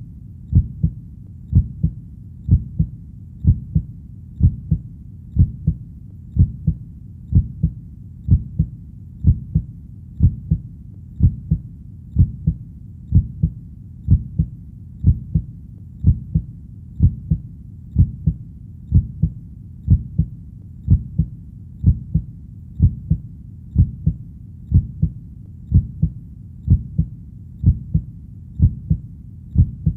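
Human heartbeat beating steadily at about one beat a second, each beat a double lub-dub thud, low-pitched and even.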